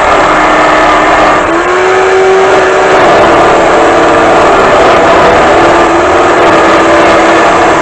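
Black & Decker electric drill running loudly, driving the D-994 wood-lathe attachment, its motor pitch rising and falling several times.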